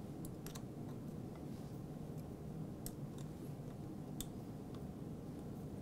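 A few light, sharp clicks of a small Allen wrench working the bolts of a bicycle handlebar stem faceplate, over a low steady hum.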